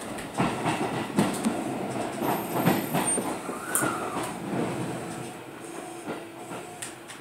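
Tokyo Metro Tōzai Line subway train running, heard from inside the car: wheels clattering and knocking over the rails, with a short rising-then-falling squeal about four seconds in. The running noise grows quieter toward the end.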